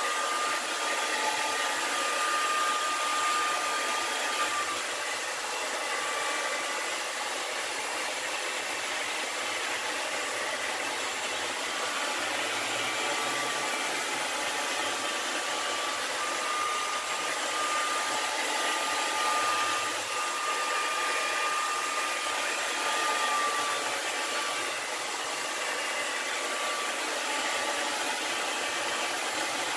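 Heat gun blowing a steady rush of hot air with a faint whine that wavers slightly in pitch, used to heat and shrink tint film.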